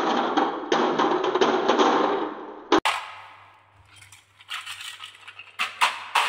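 Glass marbles rolling down a wooden track and clattering into a toy truck's load bed heaped with marbles, a dense continuous clatter that cuts off abruptly about three seconds in. Then, after a quiet moment, scattered clicks as the marbles shift in the bed while the truck is pushed by hand.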